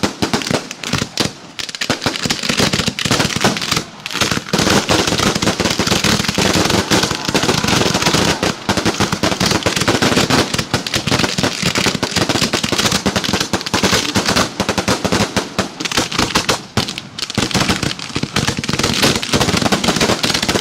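Consumer fireworks going off in a finale barrage: a dense, rapid, unbroken run of bangs and crackles, with only a couple of short lulls near the start.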